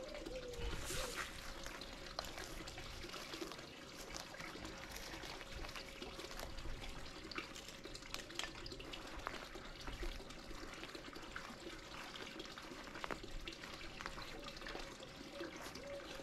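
Faint steady trickle of running water, with a thin steady hum underneath.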